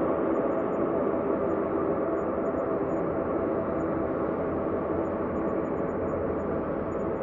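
Synthesized ambient space drone: a steady, sustained hum of many held tones over a low rumble, without beat or melody.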